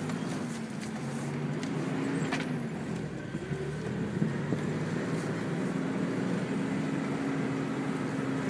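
Toyota 4Runner engine heard from inside the cab as it crawls over a rutted dirt trail, its revs rising and falling, dipping about three seconds in and climbing again. A few faint clicks sound over it.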